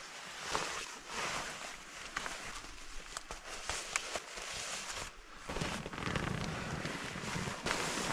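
Rustling and swishing of nylon fabric with small scattered clicks as a person handles gear and climbs into a nylon down sleeping bag. The rustle grows fuller about five and a half seconds in.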